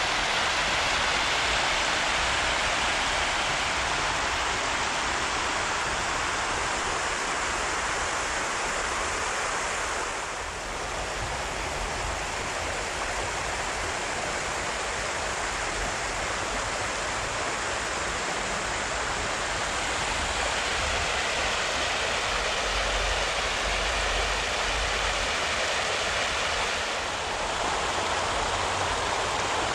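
Spring-tide water rushing and pouring over a grassy riverbank as the river overtops it: a steady rush of water that dips briefly about ten seconds in and again near the end.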